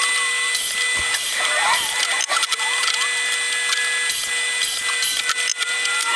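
Woodworking power tools running, a drill and sander among them, with a steady high whine, broken by scattered sharp knocks, one about a second in.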